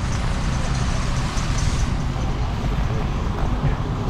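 Road traffic on a rain-wet street: bus and truck engines running with a steady hiss of tyres on wet pavement.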